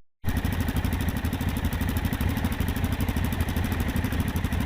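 Motorcycle engine idling steadily, with an even pulse.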